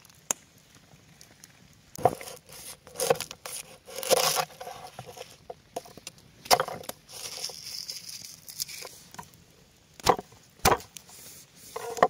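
Garlic cloves being crushed and cut with a large kitchen knife on a wooden cutting board: several sharp knocks of the blade on the board, with crackling in between.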